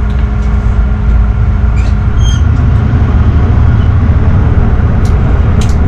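Tugboat's diesel engines running under power, a loud steady low rumble that grows a little fuller about halfway through, with the propeller wash churning the water.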